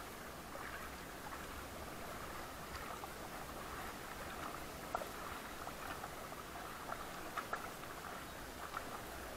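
Paddles dipping and splashing in calm river water as an inflatable raft is paddled, a steady watery wash with a few sharp light knocks, the loudest about halfway through and a quick pair a couple of seconds later.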